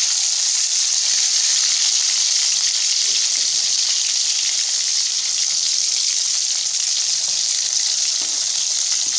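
Masala-coated fish pieces shallow-frying in hot oil in a kadai: a steady, loud, even sizzle of bubbling oil. The pieces are well along, already golden-brown and crisp.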